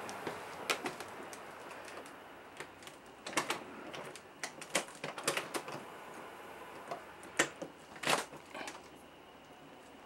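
Irregular light clicks and taps over a faint steady hiss, the handling noise of someone moving a handheld camera around a trailer's interior.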